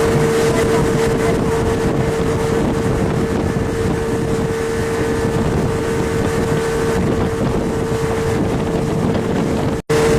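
Speedboat engine running steadily at speed with a constant hum, and wind rushing over the microphone. The sound cuts out for an instant near the end.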